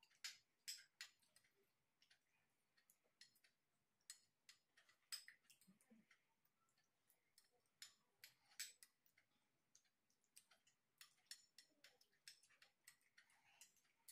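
Faint, irregular clicks and taps of spoons on dishes while eating milk-soaked rice cakes, a few louder taps among many small ones.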